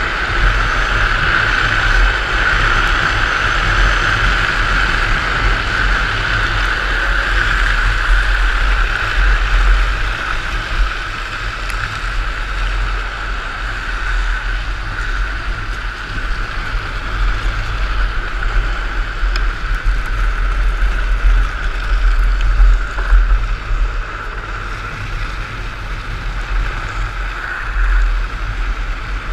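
Wind rushing over a helmet-mounted camera's microphone, with a low rumble, mixed with the steady hiss of drift trike wheels rolling and sliding on asphalt during a fast downhill run.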